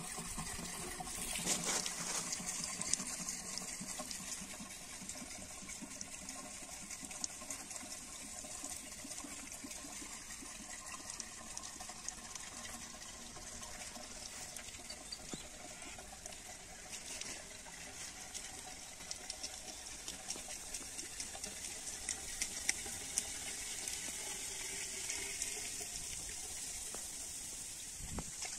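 Water poured from a plastic container into a diesel water pump's inlet pipe, splashing and trickling steadily as the pump is primed.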